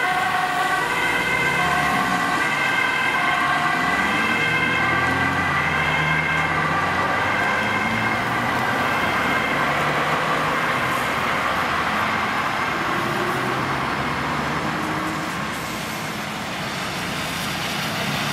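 Ambulance two-tone siren, stepping between a high and a low note about once a second, growing fainter after about eight seconds as it drives away, over engine and traffic noise.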